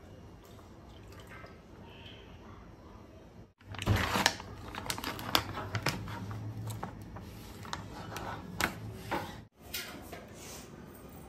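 Crackling and sharp clicks of a plastic ready-to-eat noodle tray being handled and its lid peeled back, for several seconds in the middle, between stretches of faint room tone.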